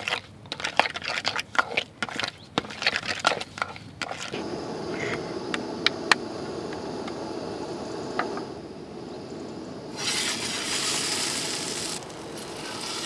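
Hands squeezing and mixing masa dough in a plastic bowl, with irregular crunching and squishing. Then a steady rushing from a gas camping stove burner with a couple of sharp clicks, and about ten seconds in a louder hiss for about two seconds as a dough patty sizzles in the hot oiled pan.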